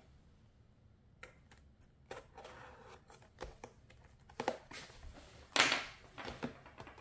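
Hobby knife cutting the plastic shrink wrap on a booster box: light clicks and short scrapes of the blade on the film. A louder rustle of the plastic wrap as a hand sweeps over it comes about two-thirds of the way through.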